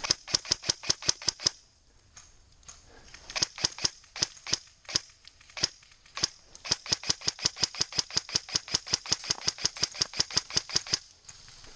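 ASG Scorpion EVO airsoft electric gun firing: a quick string of sharp shots, a few scattered shots, then a long even run of about eight shots a second that stops near the end.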